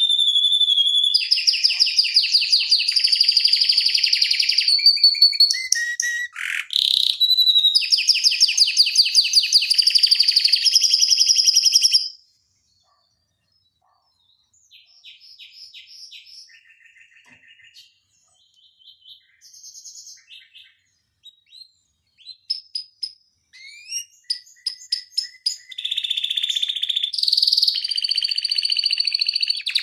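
Domestic canary singing long, very fast rolling trills. The song breaks off for about two seconds near the middle, comes back softly as short separate note groups and rising notes, then returns to loud rapid rolls near the end.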